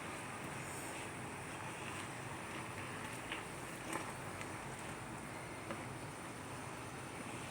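Steady hiss of a pot of water on the boil over the fire, banana leaves cooking in it to soften them, with a few light knocks about three, four and six seconds in.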